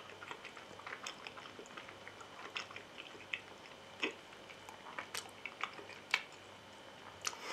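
A person chewing a mouthful of soft hamburger steak with mouth closed: faint, irregular wet mouth clicks, a few of them louder.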